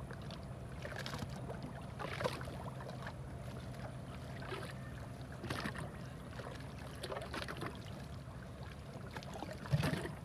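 Low, steady drone of the freighter's engine, with scattered small clicks and rustles and a louder thump near the end.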